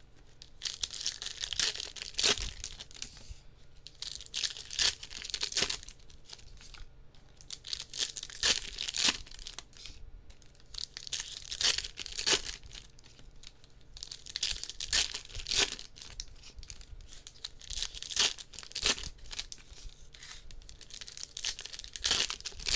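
Trading-card packs from a Topps Chrome blaster box being torn open, with repeated bursts of wrapper tearing and crinkling.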